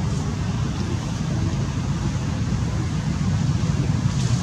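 Steady low rumbling noise, like wind buffeting the microphone, with a brief faint hiss near the end.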